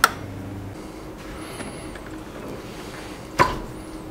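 Pliers working the spring clamp on a radiator hose: two sharp metallic clicks, one right at the start and another about three and a half seconds in, over a faint steady hum.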